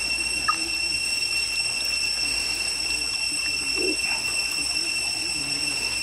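A steady high-pitched insect drone, with soft squelching as hands scrub live eels in a pan of muddy slurry.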